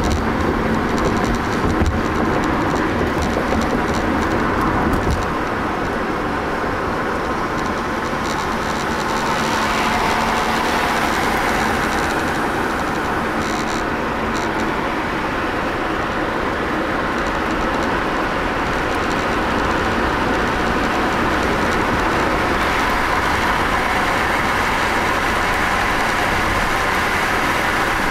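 Steady road and engine noise of a car driving on a highway, heard from inside the cabin. It swells a little about ten seconds in.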